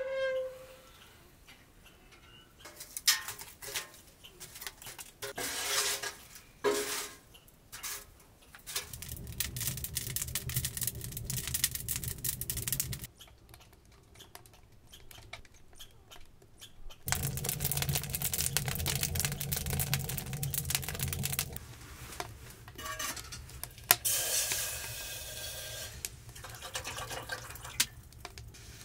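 Camp cookware being handled with clicks and clinks, and water poured in two stretches of several seconds each.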